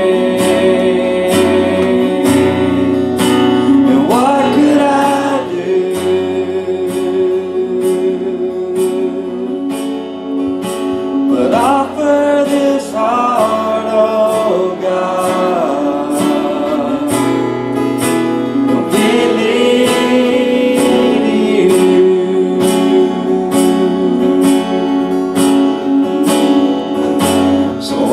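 Live church worship band playing guitars over a steady beat, with voices singing in places.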